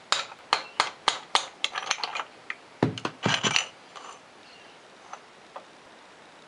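Hammer tapping a drift to drive the wrist pin out of a Polaris 400 piston: sharp metallic taps, about two to three a second, for the first two seconds. A louder cluster of metal clanks follows around three seconds in, then a few light clinks.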